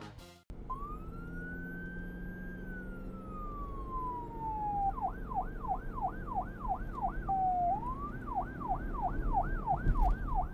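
Police siren: one long wail that rises and then slowly falls, then switches to a fast yelp of about three sweeps a second, breaking briefly before the yelp resumes. A low rumble runs underneath.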